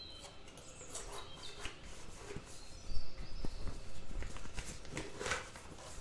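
Rustling of a piping bag being handled and folded over the rim of a glass, with a few light knocks. The loudest knock comes about three seconds in.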